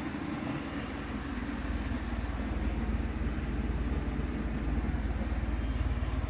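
Central air-conditioning system running: a steady low rumble and hum that fills the room.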